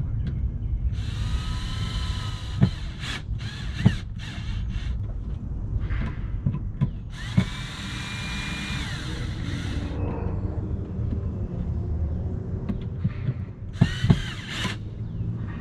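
Power drill running in three short bursts, its motor whine winding up and back down each time, with a few sharp knocks in between, over a steady low rumble.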